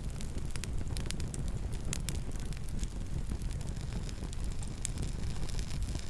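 Campfire burning: a steady low rumble with scattered sharp crackles and pops, several a second at irregular intervals.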